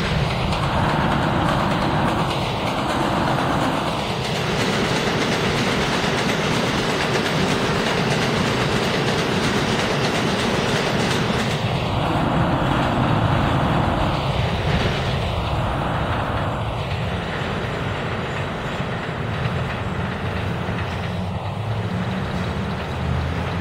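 New York City Subway J train running on elevated track, a continuous rumble with wheels clacking over the rail joints as the cars pass.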